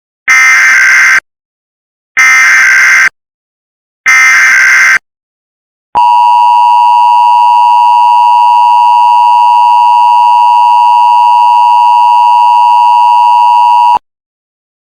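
Emergency Alert System SAME header: three loud bursts of data tones about a second apart, then the two-tone EAS attention signal held steady for about eight seconds before cutting off.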